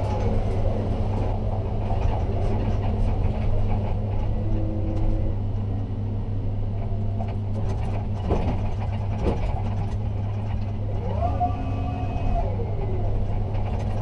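Ship-to-shore container crane heard from the operator's cab: a steady low hum with the whine of its electric drives gliding down at the start, then about 11 seconds in rising, holding and falling again as the motors speed up and slow down. A couple of light clicks a little past the middle.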